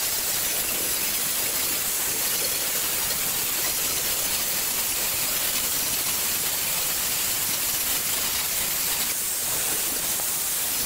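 Angle grinder with a flap disc running and sanding rust off a steel hoe blade: a steady, loud grinding hiss.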